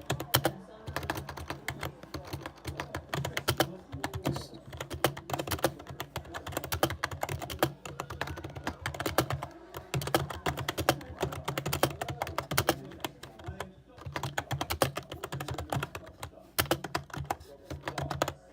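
Typing on a computer keyboard: a fast, continuous run of keystroke clicks, with a brief pause about three-quarters of the way through.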